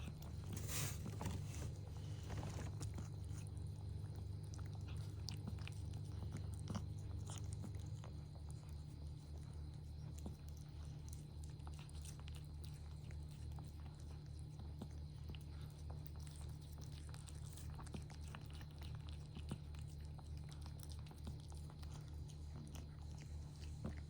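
A cat chewing and licking, with small scattered clicks, over a steady low pulsing hum.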